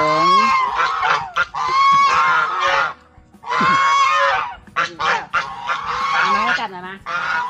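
Farmyard fowl calling loudly over and over: a string of harsh calls, each a second or two long, with short breaks between.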